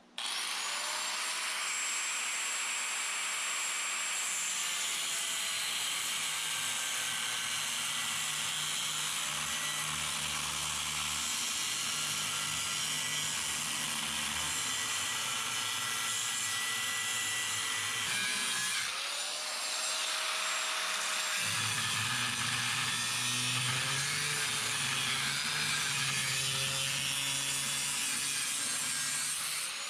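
Corded angle grinder spinning up with a rising whine and running steadily as it is worked over a steel diamond-plate sheet. It winds down about 18 seconds in, is started again a second later, and stops at the end.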